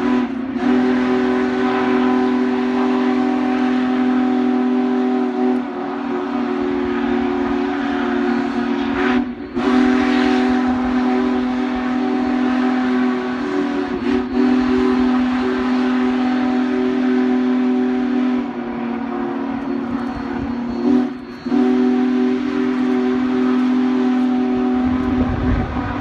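Union Pacific 4014 Big Boy steam locomotive's whistle blowing a chord of several steady tones in long blasts of several seconds each, with short breaks between them. A low rumble comes up near the end.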